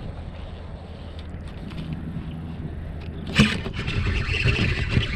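Wind rumbling on the microphone. About three and a half seconds in comes one sharp knock, followed by loud, rough rustling noise, water or hull noise from the kayak.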